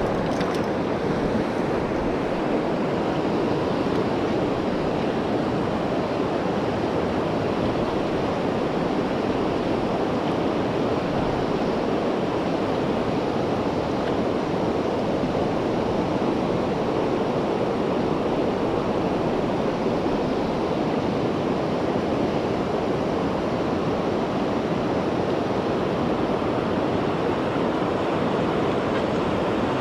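Shallow river water rushing steadily over a stony riffle, heard close to the surface.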